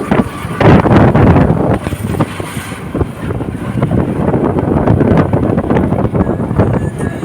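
Wind buffeting the microphone: a loud, uneven low rumble that swells and drops in gusts.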